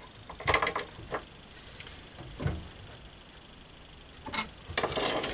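Short scrapes and clicks of small metal hand tools, a scriber and a steel rule, being handled and set down on a wooden workbench while a steel bracket is marked out. There are a few scattered ones, with a busier run near the end.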